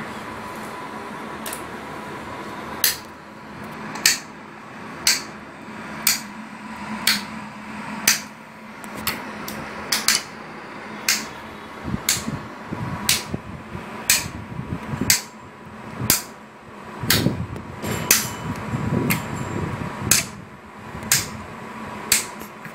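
Graviner OMD Mk5 oil mist detector running on the bench: sharp, regular clicks about once a second over a steady faint hum.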